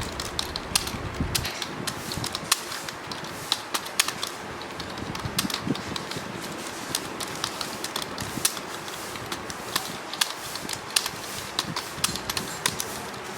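Typing on a mechanical keyboard: a rapid, irregular run of sharp key clicks, several a second, over a steady background hiss.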